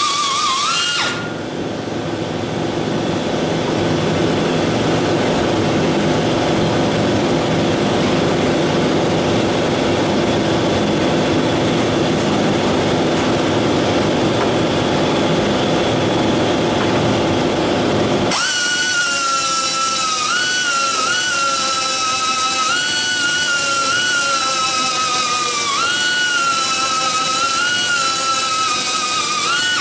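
Small air grinder whining at a high pitch as it grinds away old steel studs on the truck's cowl, the pitch dipping and recovering as the wheel bites into the metal. The grinder stops about a second in, and a steady lower drone fills the gap. The grinder starts again a little past halfway, its whine wavering with the load.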